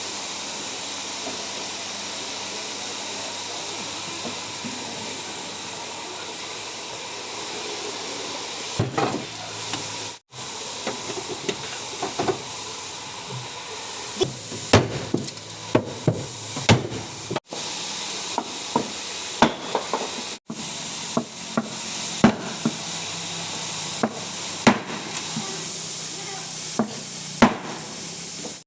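Body-shop work noise: a steady hiss for several seconds, then a run of irregular sharp knocks over continuing hiss, broken off abruptly a few times.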